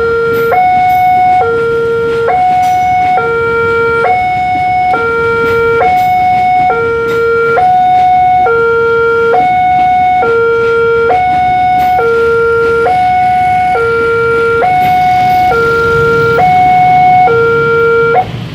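New electronic two-tone warning siren at a railway level crossing, alternating between a low and a higher tone, each held a little under a second, over and over. A low rumble builds in the last few seconds, and the siren cuts off just before the end.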